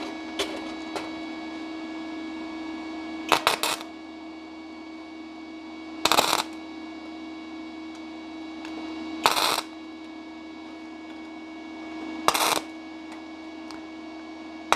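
Gasless flux-core MIG welder striking four short tack welds on 0.4 mm sheet steel, each a crackling, sputtering arc of about half a second, spaced about three seconds apart, with a steady hum in between. Flux-core wire is at its limit on sheet this thin.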